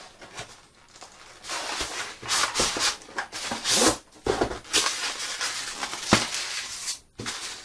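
Packaging rustling and scraping in irregular bursts as a boxed set of floor scales is handled and unpacked.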